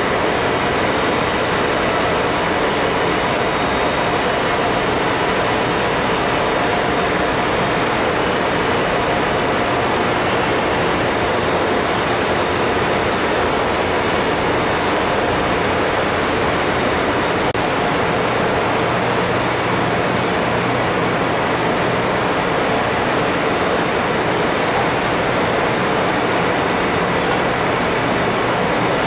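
Steady, unbroken rushing noise like a blower or air flow running, with a few faint steady whistling tones over it.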